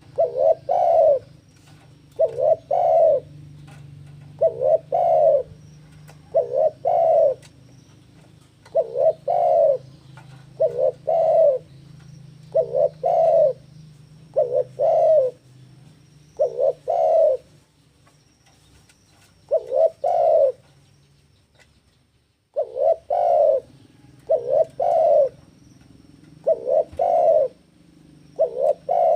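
Spotted dove (tekukur) cooing: clusters of two or three short, loud coos repeated about every two seconds, with a brief pause about 21 seconds in.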